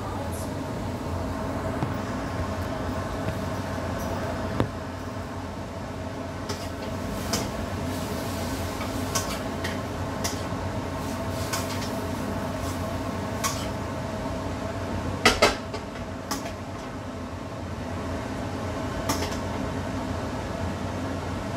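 Kitchen handling sounds: scattered clinks and knocks of dishes, utensils and cupboard doors, the loudest a quick pair of knocks about two-thirds of the way through, over a steady mechanical hum.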